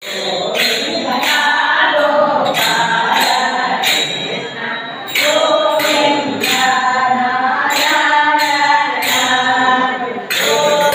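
Women's voices singing a song together, with sharp rhythmic beats about twice a second, the accompaniment to a group circle dance.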